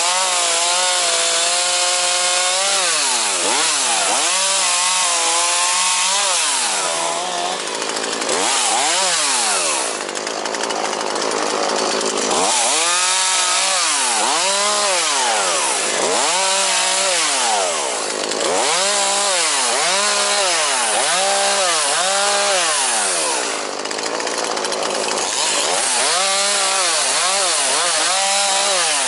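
ZimAni 450 two-stroke chainsaw cutting through branches and brush, the engine revving up and dropping back over and over as each cut is made, often about once every second and a half.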